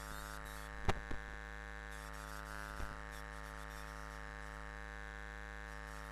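Steady electrical mains hum with a buzzing stack of overtones, from the sound system or recording chain, with two short soft knocks about a second in and a fainter one near three seconds.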